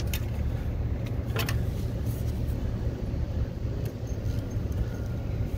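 A steady low rumble, with two light clicks, one at the start and one about a second and a half in, as a rubber drive belt is worked by hand over the engine's pulleys.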